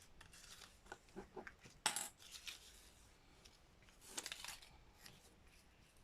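Faint handling noises of paper and small craft tools: a few light clicks and taps about a second in, a brief sharper rustle near two seconds, and a short cluster of small clinks and rustles around four seconds in.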